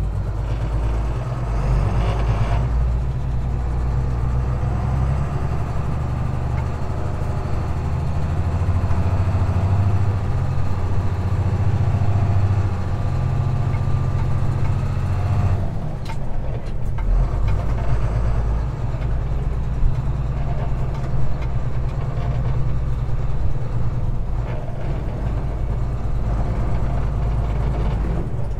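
Navistar DT360 diesel engine of a 1988 International dump truck pulling away under load, heard from inside the cab. About sixteen seconds in, the engine note briefly drops and changes, as at a gear change through the Spicer manual gearbox.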